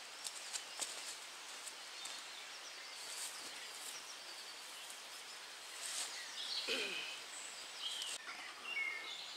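Birds chirping and calling in the woods, with a few light footsteps crunching on dry leaf litter in the first second.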